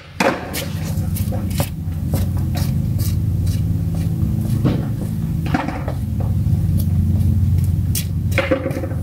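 Used engine oil pouring from an open drain plug in a thin, steady stream into a plastic drain pan, splashing into the oil already collected there, with a steady low rumble and scattered small clicks.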